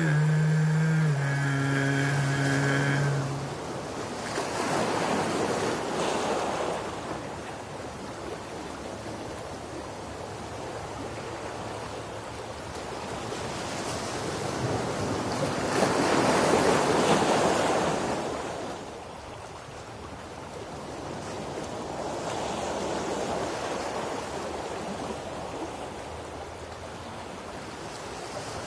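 Ocean waves washing onto a shore, a steady hiss that swells and fades in slow surges, the biggest a little past halfway.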